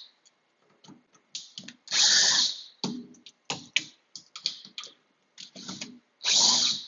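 Hands working a door's spring hinge and its screws: a run of small metal clicks and clinks, with two short, loud, noisy bursts, one about two seconds in and one near the end.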